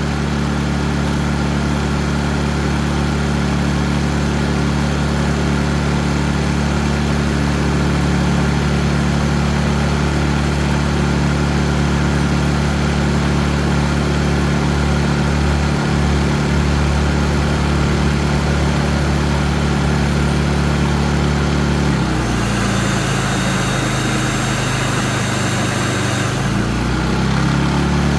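Predator 3500 inverter generator's single-cylinder engine running steadily. About 22 seconds in, a vacuum cleaner plugged into it switches on and runs for about four seconds with a whine and rushing air, and the engine's note changes under the load. The generator keeps running under the load.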